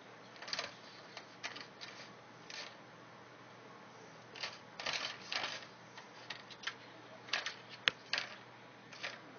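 A cat toy being batted and knocked about by a cat: irregular short rattling and scraping clatters, a dozen or so at uneven intervals, with one sharp click about eight seconds in.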